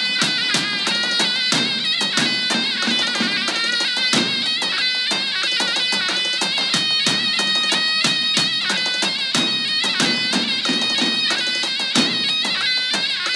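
Loud Arab folk dance music for a wedding: a high melody line of held and ornamented wavering notes over a steady drum beat.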